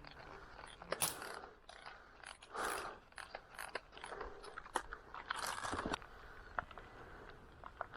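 Scattered sharp clicks and short rustling, scraping noises, the loudest about a second in and again near the middle of the clip.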